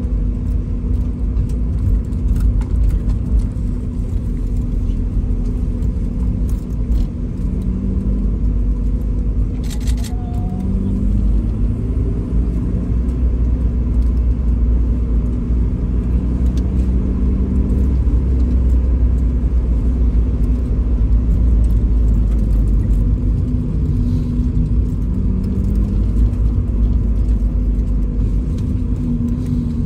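Mazda Roadster's engine and tyres rumbling steadily inside the cabin as the car rolls slowly along, the engine note shifting a little in pitch, with a single short click about ten seconds in.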